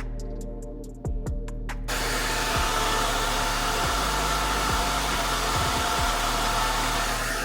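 A handheld hair dryer switches on about two seconds in, blows steadily and cuts off near the end, over background music with a beat.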